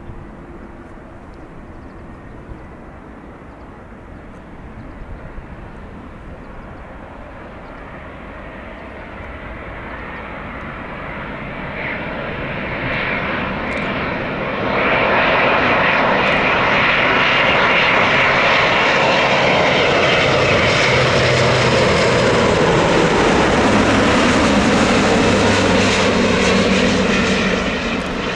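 Jet airliner's engines, a wide roar that grows slowly louder, jumps up sharply about halfway through, holds loud for over ten seconds, then falls off near the end.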